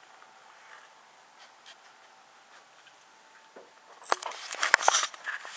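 Faint room tone, then about four seconds in a run of sharp clicks, knocks and rustling from the camera being handled and carried.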